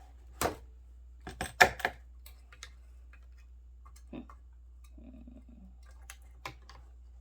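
Scattered sharp clicks and clinks of tools and metal parts while a vintage 1960s Talk-A-Phone intercom is being taken apart. A quick cluster of clicks about a second and a half in is loudest, then only a few sparse ticks follow.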